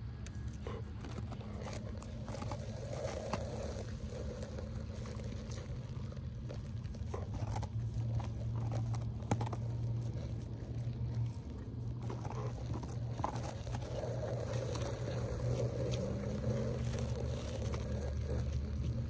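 Rottweiler gnawing and licking a pumpkin, with short crunches and scrapes of teeth on the rind, over a steady low background hum.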